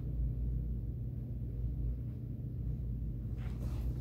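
Steady low hum, with a faint brushing sound near the end.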